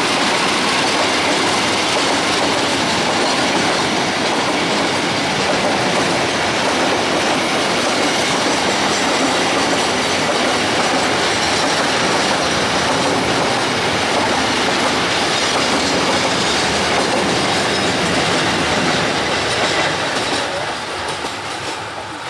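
Train running past at close range, its wheels clattering over the rail joints in a loud, steady rumble that begins to fade near the end as the train moves away.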